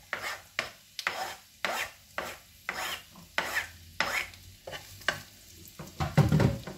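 A spoon scraping and tapping chopped onion and garlic off a plastic cutting board into a wok of hot melted butter, in sharp strokes about twice a second, with light sizzling. Near the end a louder knock as the spoon goes into the pan to stir.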